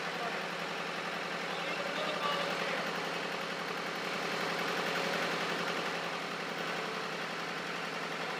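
Old Caterpillar engine set that drives the fog horn's air compressor, running steadily at an even speed.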